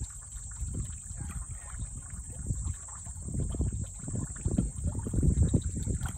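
Water splashing and sloshing as two common snapping turtles thrash and grapple in shallow water. The splashing grows louder and heavier from about halfway through.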